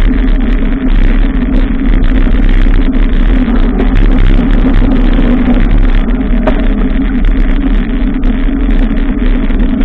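Steady, loud rushing of wind and road noise on a bicycle-mounted camera's microphone while riding, with a low rumble and no breaks.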